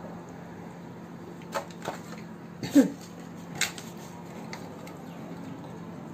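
Aluminium foil being handled and crumpled, giving a few sharp crackles between about one and a half and four seconds in. The loudest crackle comes with a brief falling squeak. A steady low hum runs underneath.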